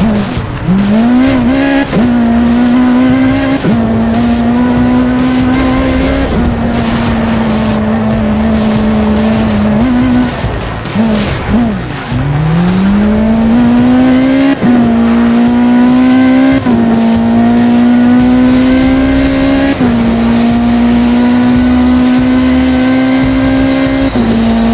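Ferrari LaFerrari V12 engine pulling hard through the gears: the pitch climbs and then drops sharply at each upshift, several times. About ten seconds in it falls away as the car slows, then climbs steadily again as it accelerates.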